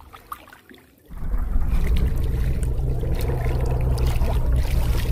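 Small boat engine running steadily with a low hum, cutting in suddenly about a second in after a quiet stretch.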